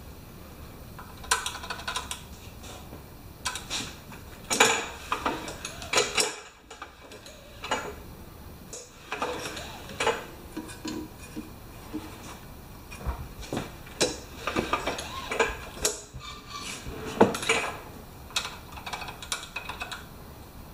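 Irregular metal clinks, taps and scrapes of hand work on a Powermore overhead-valve mower engine as its valve cover is unbolted and taken off. The engine is not running.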